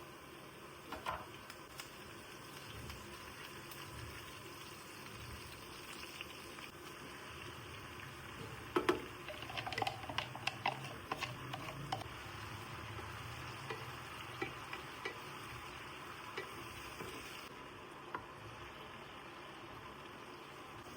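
Food sizzling in a pan, with a spoon stirring and clinking against the pan in a cluster of sharp knocks about nine to twelve seconds in.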